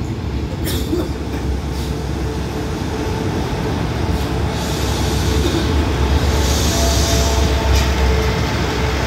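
State Railway of Thailand diesel railcar train pulling in along the platform, its engines and wheels rumbling and growing louder as the cars pass. A few clicks come about a second in, and a brief high hiss comes near the end.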